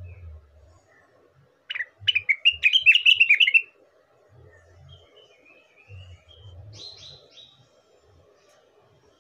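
Green leafbird (rengganis / cucak wilis) singing: a loud, rapid run of chirping notes about two seconds in, then softer scattered whistles and a few short high notes.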